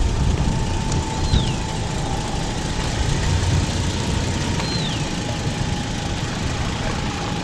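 Toyota Hilux pickup's engine running as it reverses a boat trailer down a slipway, a steady low rumble. Two short falling whistles are heard, about a second in and again near five seconds.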